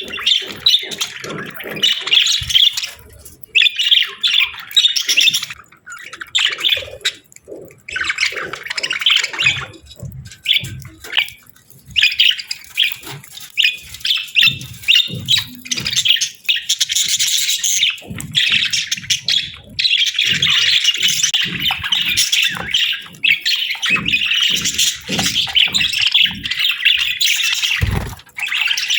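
A pair of budgerigars chattering and chirping almost without pause, in quick warbling phrases broken by short gaps, with scattered soft taps and clicks. A single low thump about 28 seconds in.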